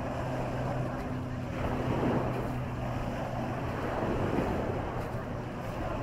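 Steady low hum of a motorboat engine out on the water, fading out about halfway, over small waves washing onto the sandy shore.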